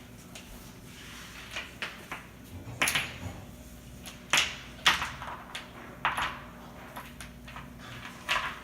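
Metal door security chain clinking and knocking against the door and its slide track in a string of irregular clicks, as it is worked by hand in repeated tries to fit it into the track.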